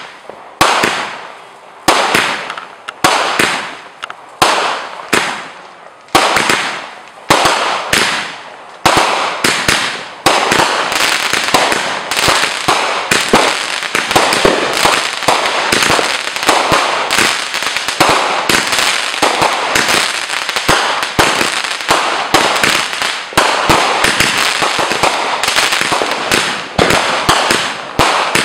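Aerial fireworks going off overhead. Separate bangs come about one a second, each trailing off, for the first ten seconds or so, then the shots run together into a dense, continuous barrage of rapid reports and crackling.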